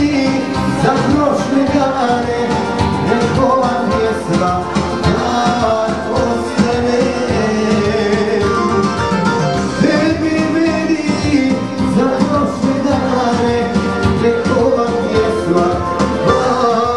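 Loud music with singing and a steady beat.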